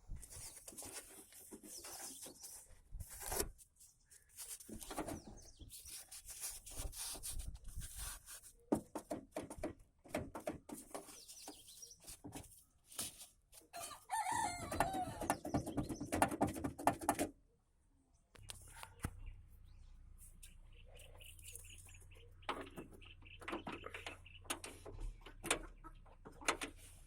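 Maruti 800 car door being worked open and shut, its hinges creaking and clicking, with a longer wavering creak about 14 seconds in. This is the door noise the owner sets out to cure with grease.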